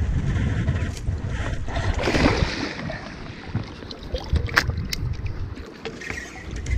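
River water splashing and sloshing as a landing net is dipped and scooped through it, over a low rumble of wind on the microphone. There is a noisy splash about two seconds in and a couple of sharp clicks near the five-second mark.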